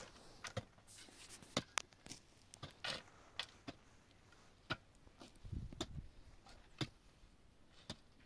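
Irregular sharp clicks and knocks, with a low thud about five and a half seconds in.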